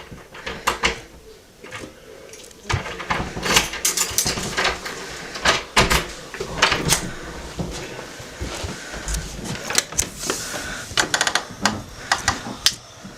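Irregular clicks, knocks and rustling, as of things being handled and moved about in a small room.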